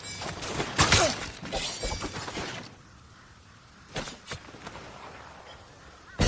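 Spear combat sound effects: a quick run of hits with a loud shattering crash about a second in, a short lull, then two sharp hits about four seconds in.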